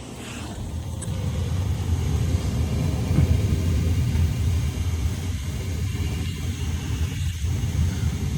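Gas burner of an old Weil-McLain steam boiler firing: a steady low rumble that builds over the first couple of seconds.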